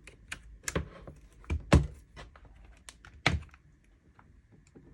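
Handling of a Dell laptop as its charger is plugged in: a scatter of light clicks and knocks, the loudest a little under two seconds in.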